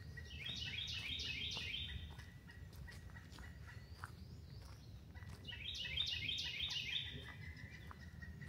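A songbird singing two songs about five seconds apart, each a quick run of about six repeated high, falling notes.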